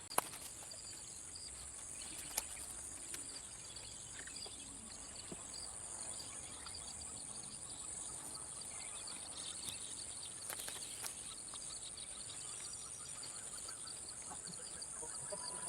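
Steady high-pitched chorus of night insects such as crickets, with a few faint clicks over it.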